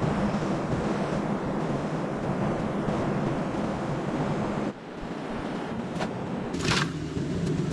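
Steady rush of a rocky river running nearby. Near the end come a couple of light clicks and a short, sharp rustle of dry sticks being handled.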